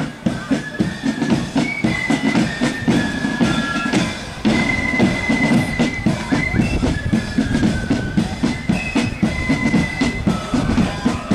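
Marching flute band playing a tune over steady bass drum and snare drum beats, the flutes holding high melody notes.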